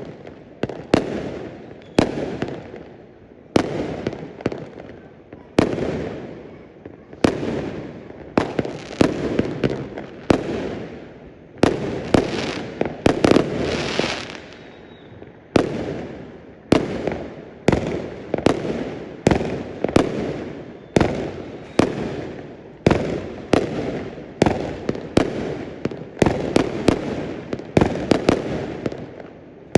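Fireworks going off one after another: sharp bangs about one to two a second, each followed by a long echoing tail that dies away before the next.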